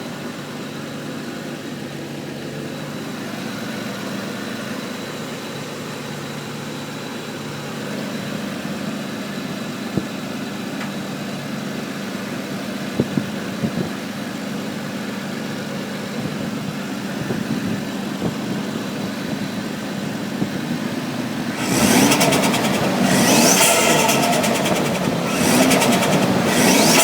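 Toyota 2JZ-GTE turbocharged straight-six idling steadily, then revved in four sharp blips over the last five seconds, each followed by turbo flutter. The flutter is compressor surge: the Greddy Type-R blow-off valve is not opening to vent boost.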